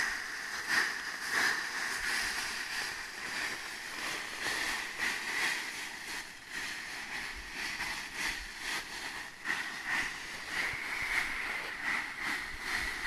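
Rake strokes through dry coffee leaves and sweepings on dirt, a rustling scrape and toss repeated about every two-thirds of a second: the leaves are being beaten to shake out fallen coffee beans. A steady high-pitched drone runs underneath.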